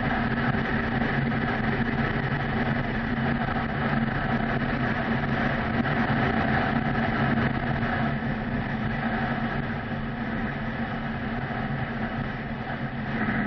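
Motorcycle engine running steadily at highway cruising speed, with a constant drone and a rush of wind and road noise. It gets a little quieter in the second half as the bike eases off from about 48 to 45 mph.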